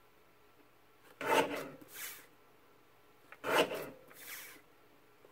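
Fiskars 12-inch guillotine paper trimmer slicing through a strip of printed cardstock: two rasping cuts about two seconds apart, each followed by a fainter scrape.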